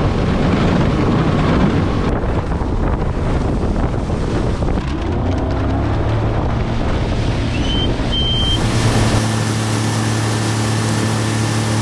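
New Mercury four-stroke outboard motor opened up and running at speed on a jon boat, with wind buffeting the microphone and water spraying off the hull. About two-thirds of the way through, the engine's steady hum comes through more clearly.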